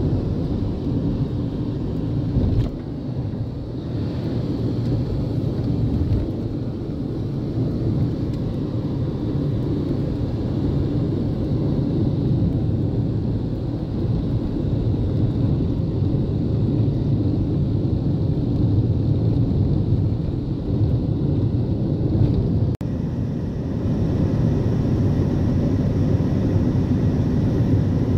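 Steady low rumble of road and wind noise inside a moving car at highway speed. The sound dips sharply for an instant about three-quarters of the way through.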